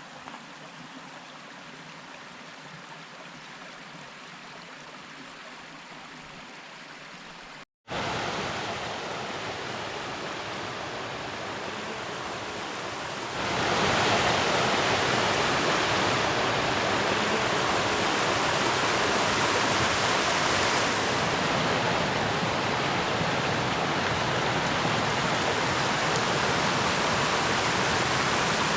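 Rushing water from a waterfall or fast stream: a steady, even noise. It drops out for an instant about eight seconds in and comes back louder, then steps louder again at about thirteen seconds.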